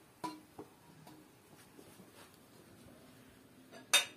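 Kitchen crockery and utensils being handled: a few light clinks, then a sharper, louder clink of a dish just before the end.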